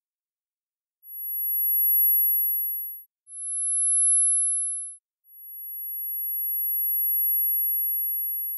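Very high-pitched pure tones, synthesized tinnitus neuromodulation sounds in the 10–13 kHz range. After about a second of silence, a tone swells in and fades out, then a slightly lower one does the same, and a third, longer tone fades in about five seconds in and holds.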